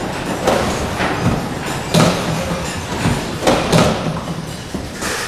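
Duckpin bowling alley din: balls rolling on the wooden lanes as a steady rumble, broken by about four sharp thuds and clatters of balls striking pins and the lane ends.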